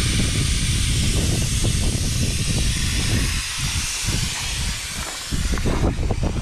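Air hissing steadily out of a Jeep's off-road tyre as it is aired down for the trail. The hiss starts suddenly and fades out near the end.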